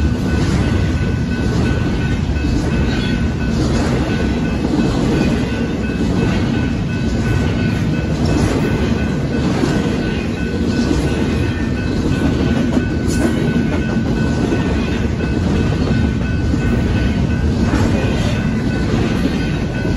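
Double-stack intermodal freight cars rolling past at speed: a loud, steady rumble of wheels on rail with repeated clacks as the wheels cross the rail joints. A faint steady high tone sits above the rumble.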